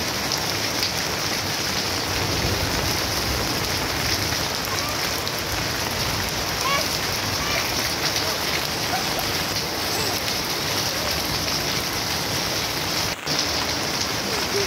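Steady rain falling on puddled ground and garden plants, with a brief dropout near the end.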